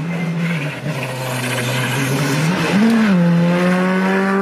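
Škoda Fabia rally car's turbocharged four-cylinder engine approaching at speed on a gravel stage. The engine note rises, dips briefly about three seconds in, then holds a steady high note as the car comes past, growing louder toward the end.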